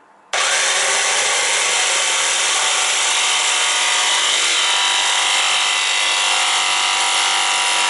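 Electric jigsaw cutting into a fibreglass boat hatch lid. It starts abruptly just after the beginning and runs at a steady, even speed.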